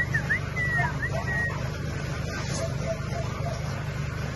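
Puppy whimpering in a few short, high squeals that rise and fall during the first second and a half, over a steady low rumble.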